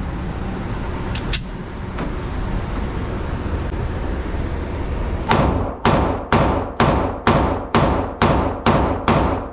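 Nine gunshots fired in quick succession, about two a second, each with a short ringing tail, after several seconds of a steady rushing noise.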